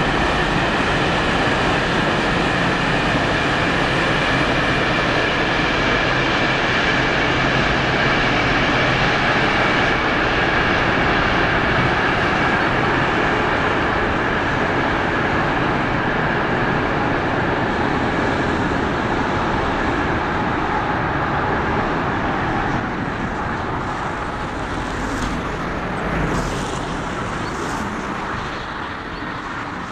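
Freight train of hopper wagons rolling past on the main line, a steady rush of wheels on rail with a faint high hum. It fades gradually in the last third as the train pulls away.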